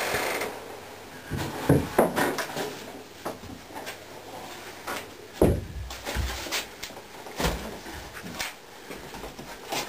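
Irregular knocks, thuds and scuffs of people moving about a small wooden workshop, with a wooden door being handled; the loudest knocks come about two seconds in and again about five and a half seconds in.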